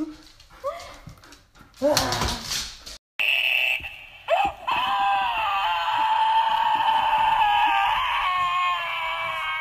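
A dog's short, rising whimpering yelps. After a sudden cut comes a long, steady, high-pitched wail that wavers slightly and is held for about five seconds.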